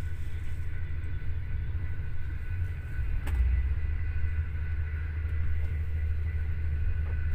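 Steady low rumble of a train running, heard from inside the carriage, with a single light click about three seconds in.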